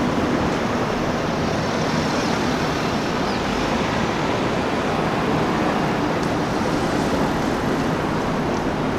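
Steady road traffic noise: a continuous, even rush of cars and tyres with no single engine standing out or revving.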